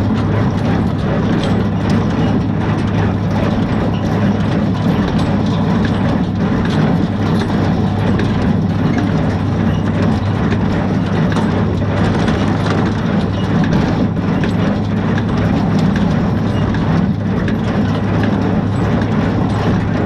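Tractor and small square baler running steadily while baling hay, heard close to the baler: a constant low engine hum with irregular clicks and knocks from the baler's mechanism.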